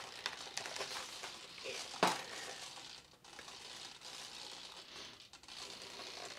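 Hands handling and turning over a foam RC warbird airframe: light rustling and rubbing against the foam, with one sharp knock about two seconds in.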